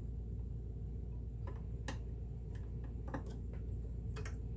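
A Singer 328K sewing machine's metal parts clicking a few times, at irregular intervals, as the mechanism is handled and turned by hand, over a steady low hum.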